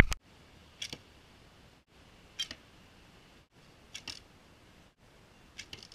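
Arrows shot from a homemade PVC recurve bow striking a foam block target: four short, sharp smacks, about one every one and a half seconds. A loud click at the very start.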